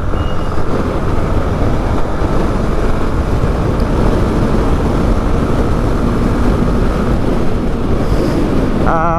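Wind rushing over the microphone on a moving motorcycle, a loud, steady roar mixed with the running engine.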